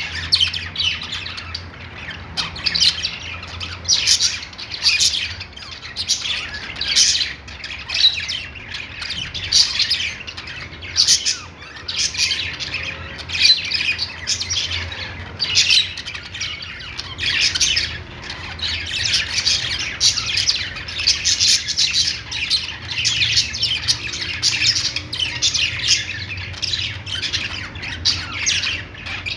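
A group of budgies (budgerigars) chattering together, a dense unbroken stream of short overlapping chirps and calls.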